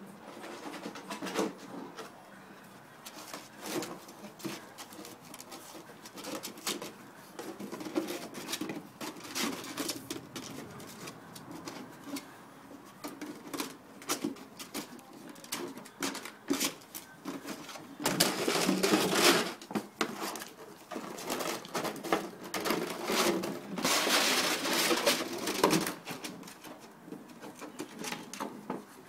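Patterdale x Russell terrier puppies playing with an empty plastic milk bottle on paving: irregular knocks, taps and scrapes of the plastic, with two longer, louder spells of scraping and rustling about two-thirds of the way through.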